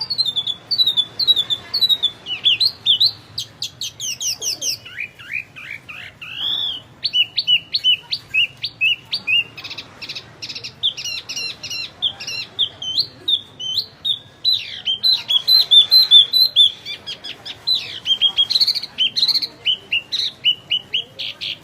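Wambi songbird singing without pause: a rapid, continuous stream of high chirps, trills and quick rising and falling whistled notes.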